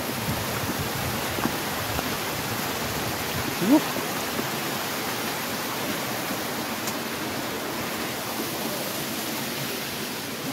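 Steady rush of the Gocta waterfall's falling water and wind-blown spray. A short rising sound, like a brief vocal call, comes a little under four seconds in.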